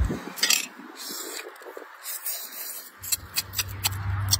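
Mantis shrimp shell crackling as it is broken apart by hand: a few sharp crackles, then a quicker run of crackles with sucking as the meat is eaten from the shell near the end.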